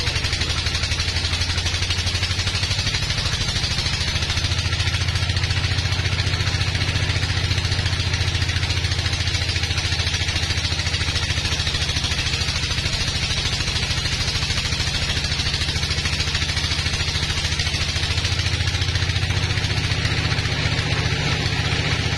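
Band sawmill running under load as its blade saws lengthwise through a large log: a steady low machine drone under the hiss of the cut.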